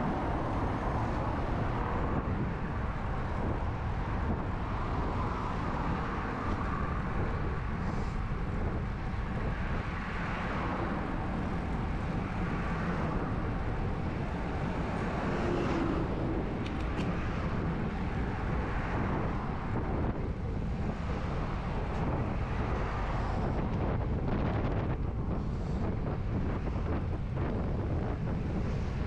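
Steady rushing wind noise on a GoPro's microphone while riding a road bike.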